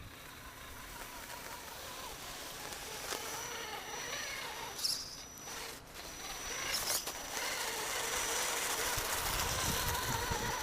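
Electric motor and gear drivetrain of an Axial SCX10 Deadbolt RC crawler whining as it crawls through snow, growing louder, with a few sharp clicks along the way.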